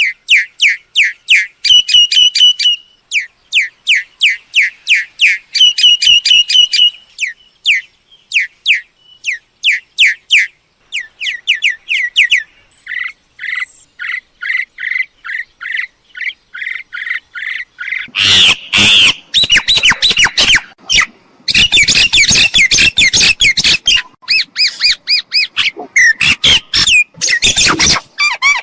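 Myna calls: a run of short, quickly repeated whistled notes, about three or four a second, giving way about two-thirds of the way through to louder, harsh squawking chatter.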